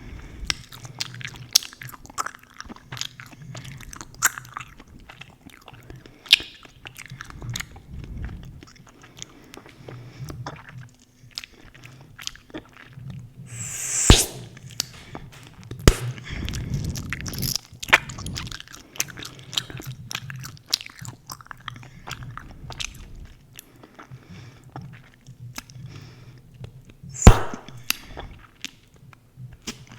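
Close-miked chewing gum being chewed: a steady run of wet smacking clicks, broken by three much louder sharp snaps about halfway through, shortly after, and near the end.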